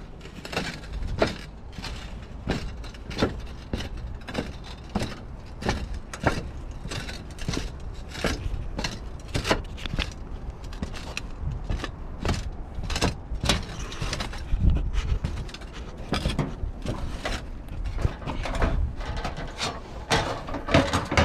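Footsteps crossing a tiled roof, with the roof tiles knocking and clacking underfoot in an irregular run of sharp knocks, about one or two a second, over a low rumble.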